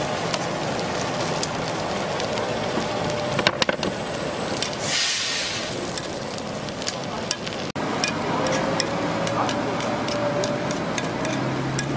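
Batter sizzling in a hot gukhwappang (chrysanthemum bread) mold, with a metal tool scraping and clicking against the pan. From about eight seconds in, quick light clicks come in a string.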